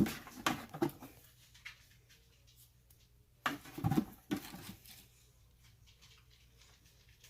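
Rustling and scraping of hands digging through garden soil and handling freshly dug sweet potatoes, in two short spells: one at the start and another about three and a half seconds in.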